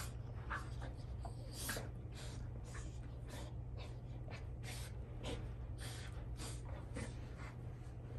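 Two Rottweilers chewing and mouthing a pink rubber toy between them: irregular wet chewing and licking sounds with breaths through the nose, about two or three a second, over a steady low hum.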